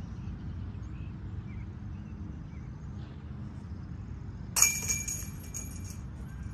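A thrown disc golf disc striking a metal chain basket: one sharp metallic clang about four and a half seconds in, then the chains jangling and ringing for about a second and a half.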